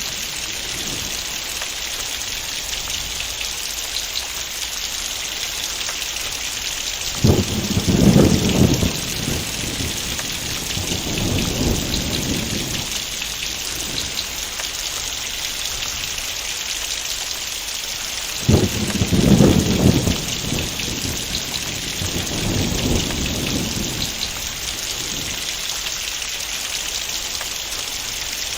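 Heavy rain falling steadily with a thunderstorm. Two loud rolls of thunder come about a quarter and two-thirds of the way through, each rumbling for a couple of seconds before fading into weaker rumbles.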